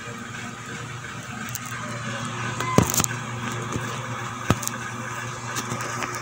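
A steady low motor hum in the background, with a few sharp knocks and clicks in the middle as the camera is handled and moved.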